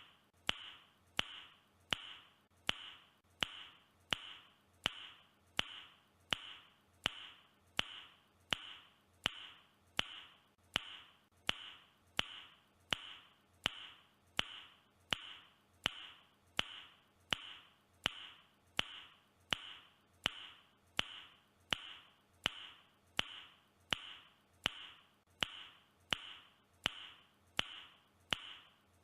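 A person's tongue click, the same click repeated at a steady pace of about three every two seconds, each with a short, high, fading ring.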